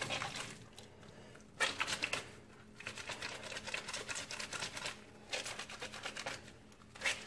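A wet, soapy sock scrubbed and squeezed between hands: several stretches of crackly rubbing and squishing of foamy wet fabric, a second or two each, with short pauses between.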